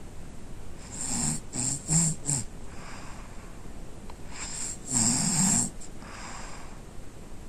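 A sleeping boy snoring deeply, with softer breaths between the snores. A loud snore about a second in breaks into several short pieces, and a second, longer snore comes about five seconds in.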